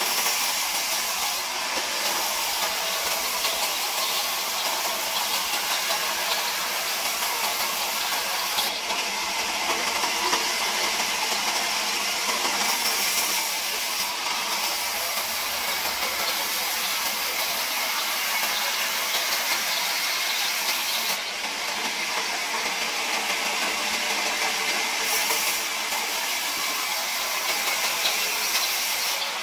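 Large wheel band saw ripping a thick plank lengthwise: a steady, even hiss of the blade cutting through the wood, with no change in level.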